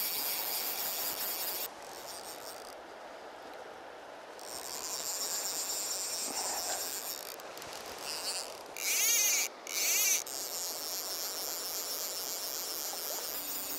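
A steady, high-pitched insect chorus, quieter for a couple of seconds early on, with two brief, louder bursts of close chirring near the middle.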